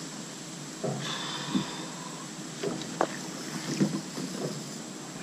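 Hooked bowfin splashing at the surface beside a small boat during the fight, a few short splashes and knocks over a steady hiss of wind and water.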